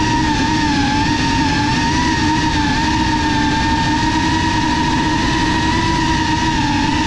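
Motors and propellers of a GEPRC Cinelog FPV drone on a 6S battery, whining steadily in flight. The pitch wavers slightly as the throttle shifts.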